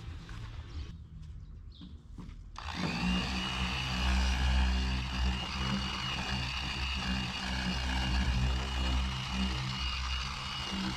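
Electric car polisher switched on about two and a half seconds in, spinning up and then running steadily with a high whine over a low hum while buffing paint.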